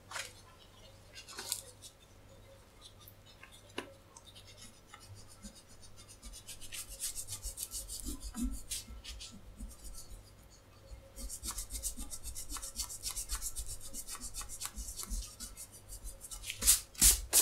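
Foam eraser scrubbed back and forth over soiled paper in quick, rapid strokes, dry-cleaning the surface dust. The rubbing comes in two long spells and ends with a few louder strokes.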